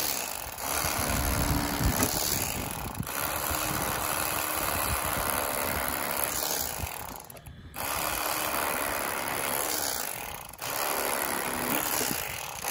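Electric fillet knife buzzing as its reciprocating blades cut the rib cage out of a northern pike fillet, running in long stretches with short breaks about seven and ten and a half seconds in.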